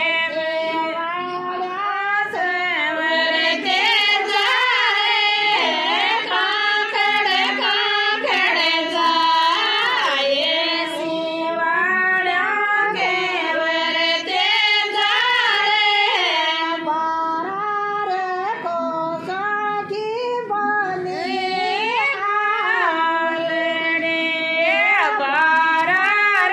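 Women singing a Rajasthani folk devotional song to Tejaji Maharaj without instruments, the voice high and wavering in long held, gliding phrases.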